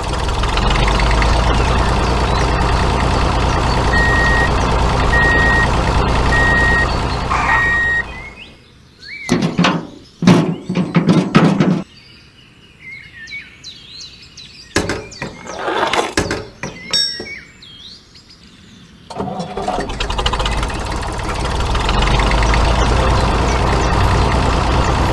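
Tractor engine running steadily, with a run of four short, evenly spaced beeps in the first stretch. It drops away for about ten seconds of clicks and knocks as the trolley hitch is handled, then the engine sound comes back.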